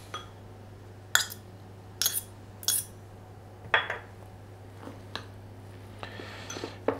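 Metal cutlery clinking against a white ceramic bowl and a small metal cup as capers are spooned into a tuna mixture and stirred: about six separate, sharp clinks spread through.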